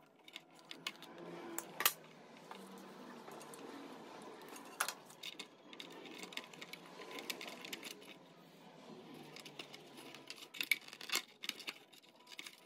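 Small clicks, taps and rattles of needle-nose pliers and wiring being handled inside a plastic RC boat hull, with sharper clicks about two and five seconds in and a cluster near the end.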